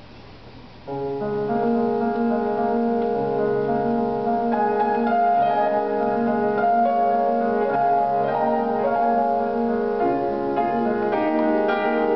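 Keyboard instrument playing the opening chords of an introduction for a choir anthem, starting about a second in after quiet room sound. It plays sustained chords that change under a melody.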